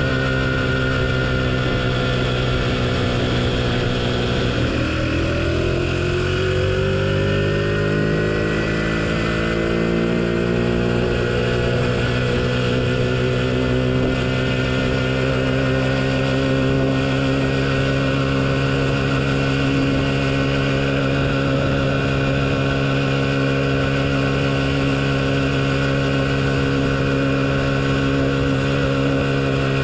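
A 49cc bike engine running under way. Its pitch dips about four seconds in, then rises again over the next several seconds as it picks up speed, and holds steady after that.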